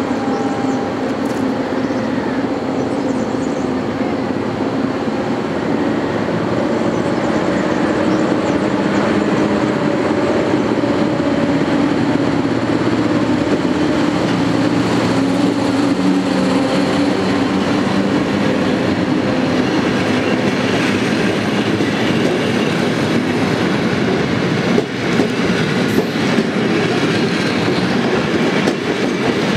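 PKP EP07 electric locomotive pulling a passenger train away and running close past with a steady hum. Then the coaches roll by, with a few wheel clicks over rail joints near the end.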